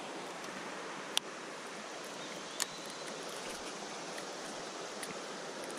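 Steady rush of river water, with two sharp clicks about a second and two and a half seconds in.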